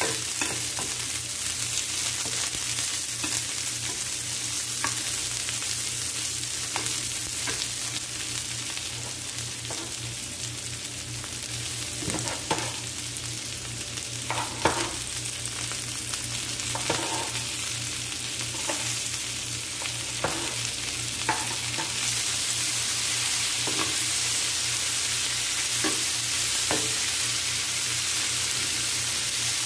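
Onions and garlic sizzling in hot oil in a nonstick frying pan, with a spatula scraping and knocking against the pan as they are stirred. A cluster of louder knocks and clatter around the middle, when the sliced tomatoes go into the pan.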